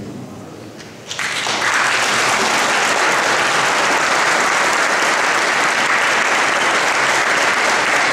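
The choir's last sung chord dies away in the church's echo, then about a second in a large audience breaks into applause that quickly fills out and holds steady.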